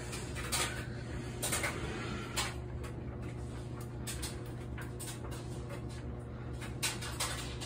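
Quiet room tone: a steady low hum with a few faint taps and knocks scattered through it.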